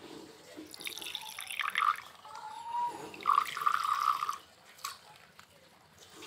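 Appy apple juice poured from a bottle into a glass tumbler, splashing and trickling in two spells, the second one near the middle louder.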